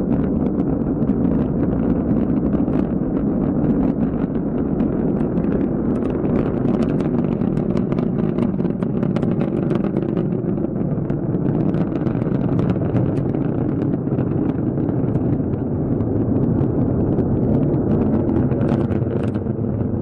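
Rocket engine running at full thrust: a steady, loud rumble with continual crackle and no sudden blast.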